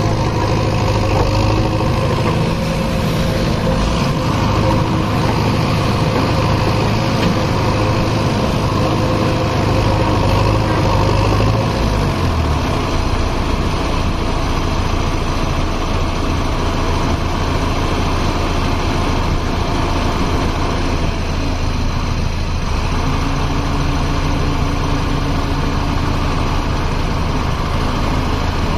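JCB 3DX backhoe loader's diesel engine running steadily. Its speed drops about twelve seconds in and picks up slightly again about two-thirds of the way through.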